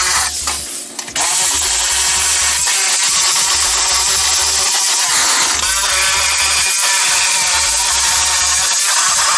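Cordless Milwaukee reciprocating saw cutting through a riding mower's sheet-metal fender, the blade chattering steadily against the metal. It stops for under a second near the start, then cuts on.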